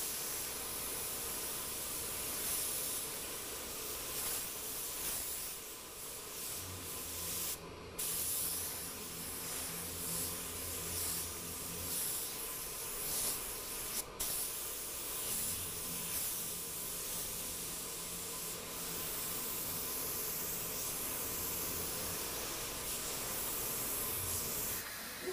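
Steady air hiss of an R500 low-volume, low-pressure spray gun spraying 2K primer surfacer onto a car door, run at low air pressure, breaking off briefly twice between passes.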